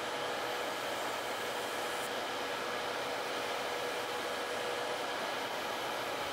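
Tabletop nail dust collector fan running with a steady whoosh, under the steady whine of an electric nail drill with a sanding band filing gel off a nail.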